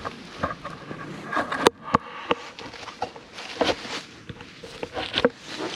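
Rustling and scattered light clicks and knocks of camping gear being handled as a ferro rod and striker are taken out, with one sharp click about two seconds in.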